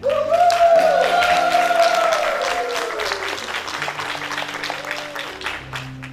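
Congregation applauding and cheering in a church hall as a gospel song ends, with one voice holding a long high note that rises and then falls, over sustained keyboard chords. The applause cuts off suddenly near the end.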